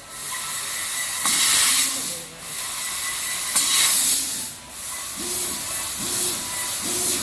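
Fiber laser tube cutting machine cutting small stainless steel square tube: the assist gas hisses from the cutting head, dropping out briefly about every two seconds between cuts. From about five seconds in, short motor whines repeat about once a second as the machine's drives move.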